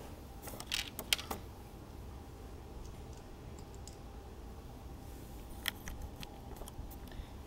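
Plastic Lego bricks clicking and clattering as they are handled and pressed onto a baseplate: a cluster of sharp clicks about a second in, a few faint ticks midway, and another cluster of clicks near the end.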